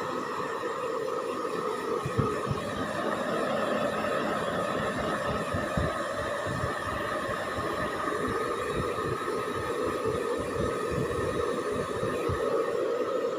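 Hair dryer running steadily. Irregular low thumps sound under it from about two seconds in until near the end.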